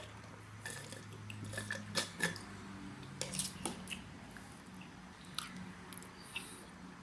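People chewing McDonald's breakfast food close to the microphone: soft, scattered wet mouth clicks and smacks, over a faint low steady hum.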